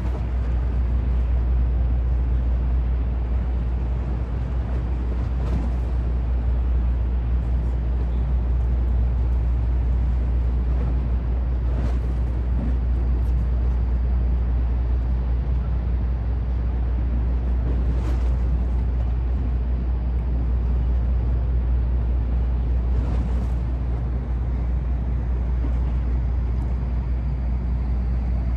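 Steady low rumble of outdoor urban waterfront ambience, with a faint hiss over it and a few brief faint swishes now and then.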